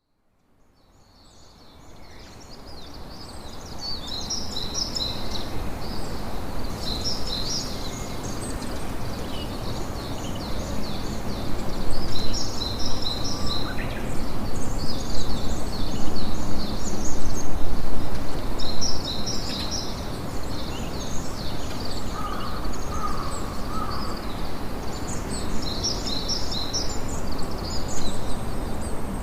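Campfire ambience fading in from silence over the first few seconds: a steady noisy rush of the burning fire, with birds chirping in repeated clusters of quick high notes.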